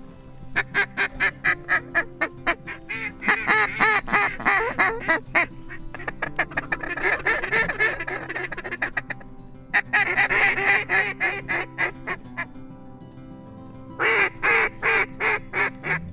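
Duck call blown by a hunter in quick runs of loud quacks, with a dense stretch of rapid chatter near the middle and short pauses between runs.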